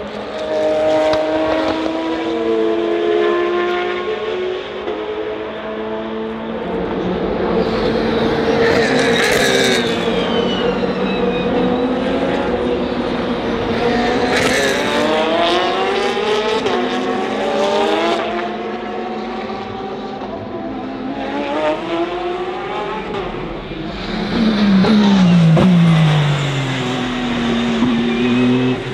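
Race cars passing at speed one after another, several engine notes overlapping and rising and falling as they go by and shift gear; the loudest passes come about 9, 14 and 25 seconds in.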